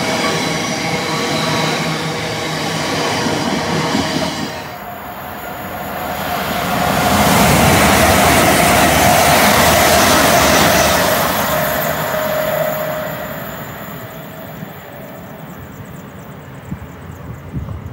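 The last cement tank wagons of a freight train roll past with their wheels squealing in several steady tones, ending about four and a half seconds in. Then a passenger train passes at speed without stopping. Its noise swells to the loudest point midway, with a steady hum, and then fades away.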